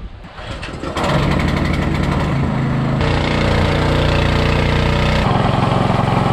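Small engine-driven water pump starting up about a second in and then running steadily, changing pitch about three seconds in and again near the end, as it begins pumping water out of a tide pool.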